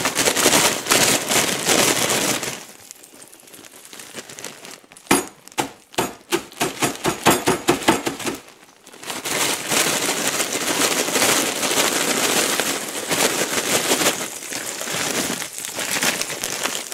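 Butter and fries sizzling in a frying pan. From about five to eight seconds in, a plastic bag of frozen peas crinkles in a run of sharp crackles, then a steady loud sizzle follows as the frozen peas fry in the hot butter.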